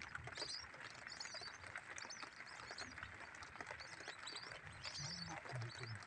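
Lesser whistling ducks' high twittering whistles, faint and repeated in short clusters about once a second.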